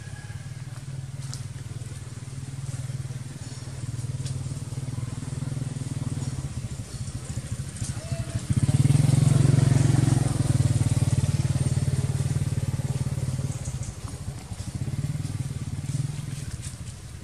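Low engine drone with a fine, even pulse, growing louder about eight seconds in and easing back after a few seconds.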